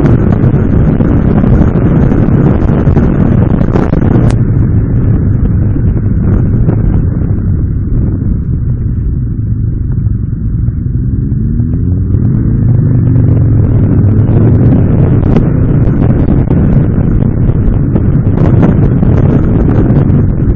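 Motorcycle riding along a road, its engine mixed with heavy wind rumble on the onboard camera's microphone. Midway the noise eases as the bike slows through a roundabout, then the engine note rises as it picks up speed again.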